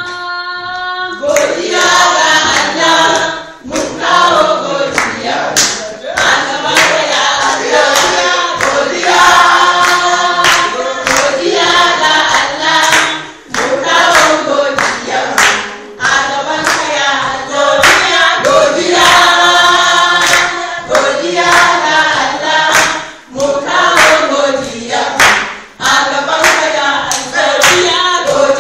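A group of voices singing a Hausa-language song of thanks together, with hand-clapping on the beat. The singing cuts off suddenly at the end.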